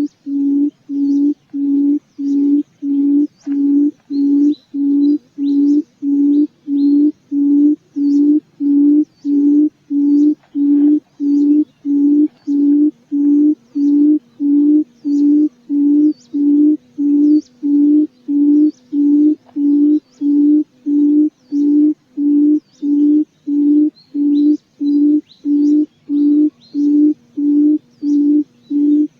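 Field quail (puyuh ladang) call played as a lure: one low hooting note repeated very evenly, about one and a half times a second, with faint high chirps of other birds behind it.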